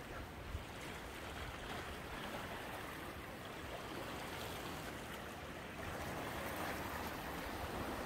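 Sea water washing and lapping among shoreline rocks in a rocky cove, a steady wash of small waves that swells slightly about six seconds in.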